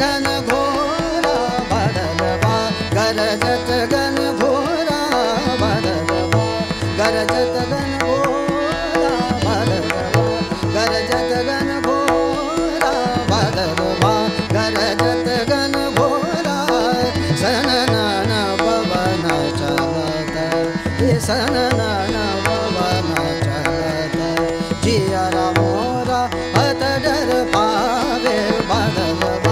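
Hindustani classical vocal music: a voice sings gliding, ornamented melodic phrases over a steady drone, with tabla keeping a regular rhythm.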